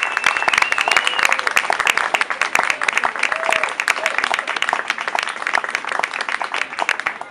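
Audience applauding, with dense clapping and a few voices calling out near the start. The clapping thins out toward the end.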